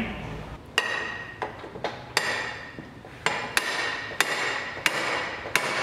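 RIDGID 535 pipe threader's front hammer chuck being spun and slammed by hand to tighten its jaws on a steel pipe: about ten sharp metallic knocks, about two a second, each with a short ring. The knocks go from soft to a sharper ring partway through, the sign that the jaws have bitten and the pipe is gripped tight and ready to thread.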